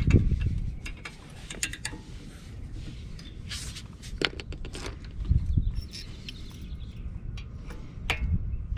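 Small metal parts clicking, clinking and scraping on a brake caliper as the pad spring bracket and retaining pins are worked into place by hand, with a few dull knocks.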